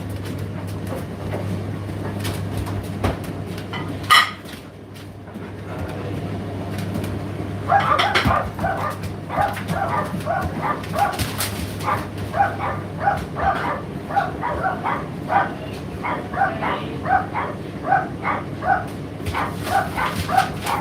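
Indesit IDC8T3 condenser tumble dryer running with a steady low hum, with a sharp knock a little over four seconds in. From about eight seconds on comes a quick irregular run of short, high-pitched yelps or squeaks, two or three a second, louder than the hum.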